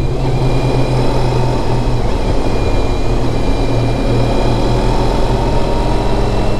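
Motorcycle engine running at a steady pace with riding wind noise, picked up by a helmet-mounted microphone.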